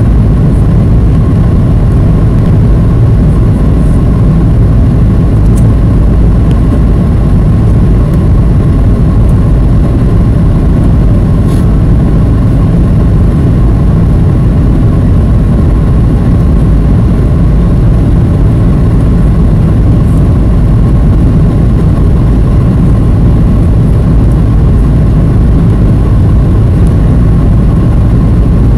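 Steady, loud cabin noise of a Boeing 737 heard from a window seat over the wing: engine and airflow noise with a thin steady whine, unchanging throughout, while the plane descends toward landing.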